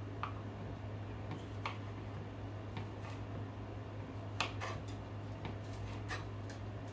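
Kitchen knife cutting tomatoes on a plastic cutting board: a scattering of short, sharp taps as the blade meets the board, irregularly spaced, over a steady low hum.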